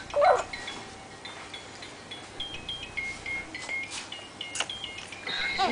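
A simple electronic tune of high beeping notes from a baby's musical play-gym toy, playing quietly and steadily. A short voice sound comes just after the start.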